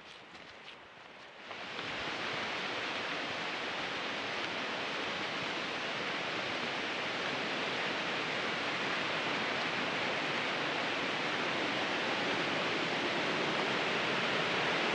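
Steady rushing of a large waterfall, heard close by. It cuts in suddenly about a second and a half in, after a few soft footsteps on a dirt trail, and grows slightly louder.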